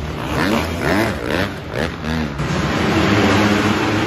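Several motocross bikes' engines revving, their pitch rising and falling quickly as riders blip the throttle; from about halfway in they settle into a steadier running drone.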